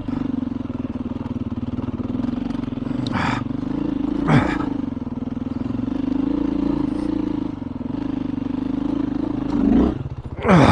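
Four-stroke dual-sport motorcycle engine running steadily on a rough trail climb, with brief rev changes a little after 3 s and near 4 s and a sharp burst of revs right at the end.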